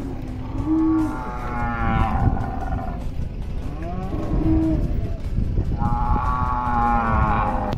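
Cattle mooing repeatedly: short, low moos near the start and about four seconds in, and two longer calls around two seconds in and near the end.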